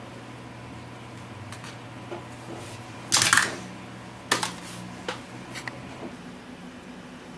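Handling noises on a desk: a loud scraping rustle about three seconds in, then a few sharp clicks and taps as a small iPod nano is set down among the desk items, over a steady low hum.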